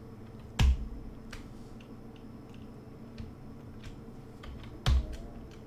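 Computer keyboard and mouse clicks, light and scattered, with two louder thumps, one about half a second in and one near the end.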